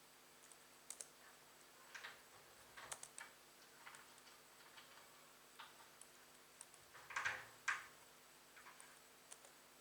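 Irregular small clicks and taps of hands working on a laptop, with two louder knocks about seven seconds in.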